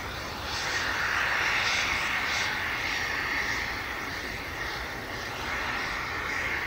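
Jet engines of an Airbus A321neo running at taxi power: a steady whine over a rushing noise that swells and eases slightly.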